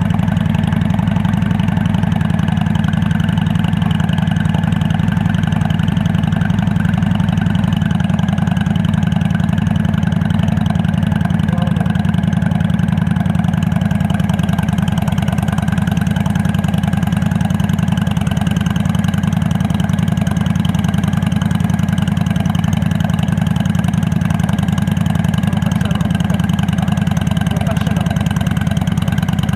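Honda Black Widow 750c's V-twin engine idling steadily through Cobra aftermarket exhaust pipes, an even, unchanging beat with no revving.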